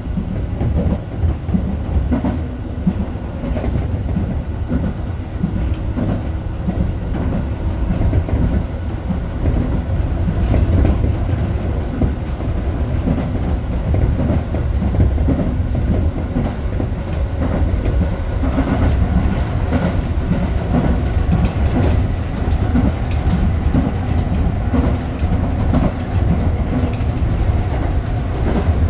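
Tobu 8000-series electric commuter train running between stations, heard from its front cab. A steady low rumble with irregular wheel clicks over the rail and faint steady motor tones.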